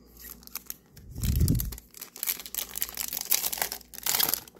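Crinkling and rustling of a foil trading-card booster pack wrapper being handled, with a dull thump about a second in.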